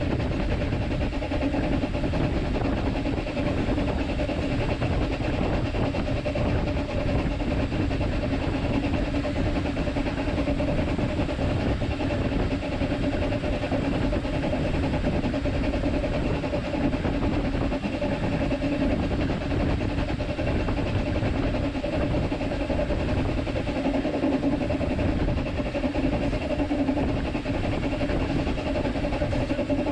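Steady noise heard in the cab of the Talyllyn Railway's narrow-gauge steam locomotive No.3 'Sir Haydn', an even, unbroken sound with two constant low tones and no pauses.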